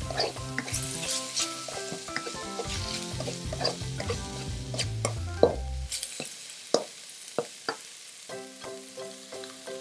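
Sliced marinated pork sizzling in a wok as it is stir-fried, with a slotted nylon spatula scraping and knocking against the pan, the knocks thinning out after about six seconds.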